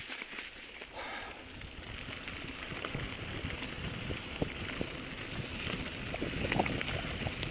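Mountain bike rolling down a dirt trail: wind rumbling on the microphone with tyre noise and scattered clicks and rattles from the bike, growing stronger after the first couple of seconds as speed builds.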